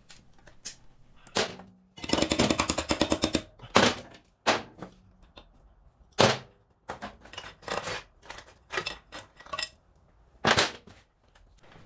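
Rusty motorcycle roller drive chain being pulled off its sprockets by hand: the links rattle in a quick run about two seconds in, then clank in a string of separate metallic knocks.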